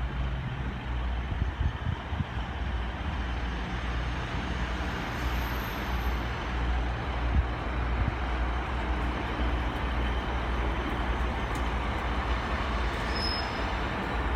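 Class 150 Sprinter diesel multiple unit running at the platform: a steady diesel engine hum with an even rumble over it.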